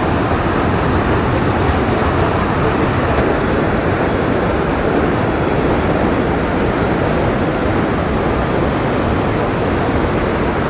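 Steady, loud rush of river water spilling over an inflated rubber dam and churning white below it. The dam is fully inflated and overtopping.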